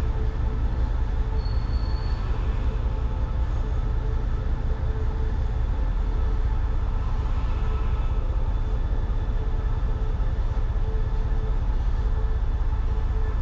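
Container wagons of a long freight train rolling past on the track with a steady low rumble, and a brief high squeal about one and a half seconds in.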